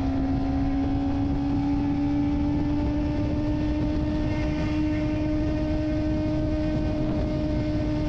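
Kawasaki Ninja ZX-25R's 250 cc four-cylinder engine running at steady high revs on the move, its note rising slowly, over a low rushing noise.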